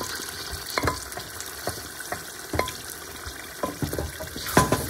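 Thick tomato stew base sizzling in oil in a metal pot while a wooden spoon stirs a freshly added blended paste into it. Scattered knocks and scrapes of the spoon against the pot come through the sizzle, loudest near the end.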